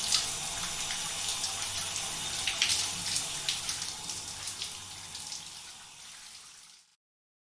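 Shower spray running, a steady watery hiss with scattered splashes. It fades over the last few seconds and stops just before the end.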